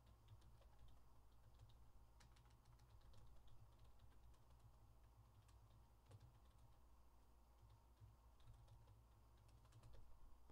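Faint typing on a computer keyboard: irregular key clicks, over a low steady hum.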